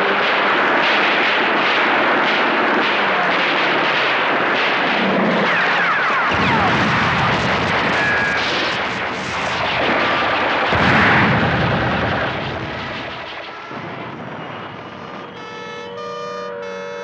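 War sound effects for a toy battle: continuous gunfire and explosions with many sharp shots, and a few falling whistles about six to seven seconds in. Near the end the battle noise dies down and a steady tone of several pitches comes in.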